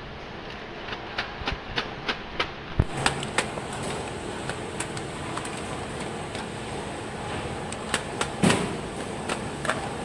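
Steady hum of a doypack coffee-bean packing machine running, with a run of sharp clicks in the first few seconds and a louder knock near the end. A faint high whine comes in about three seconds in.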